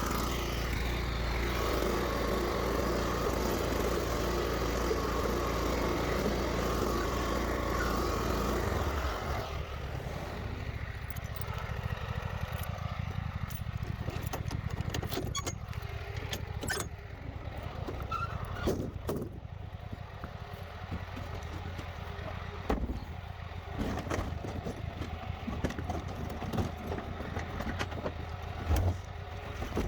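Lawn mower engine running under load, then about nine seconds in the sound drops to a quieter, lower engine hum with scattered clicks and knocks.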